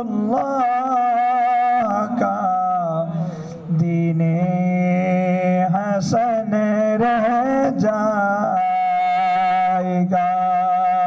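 A man singing an Urdu naat into a microphone, holding long wavering notes with ornamented turns, with a short break a few seconds in. A steady low drone runs underneath.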